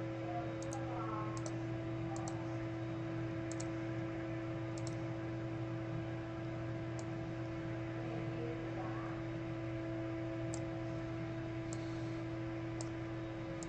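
Scattered computer mouse clicks, a dozen or so, several in quick pairs, over a steady electrical hum.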